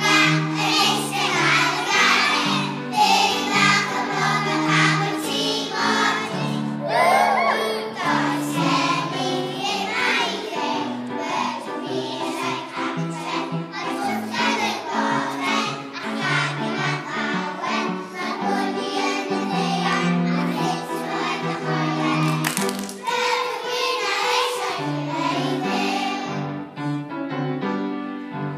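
A group of young children singing together as a choir over a musical accompaniment.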